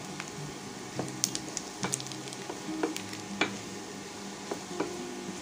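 Diced chicken gizzards sizzling as they fry in a stainless steel pan, stirred with a wooden spatula. The spatula knocks against the pan in sharp clicks, about eight times, louder than the sizzle.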